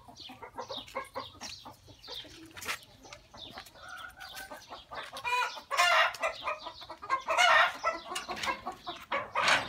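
Chickens clucking in a coop, with louder drawn-out calls about six, seven and a half and nine and a half seconds in.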